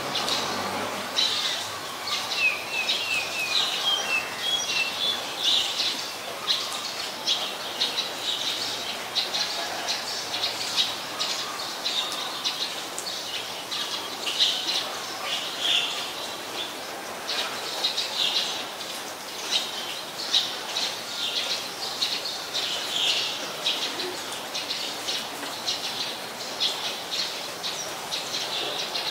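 Birds chirping over and over, with many short high calls following each other closely and a quick run of notes about two seconds in.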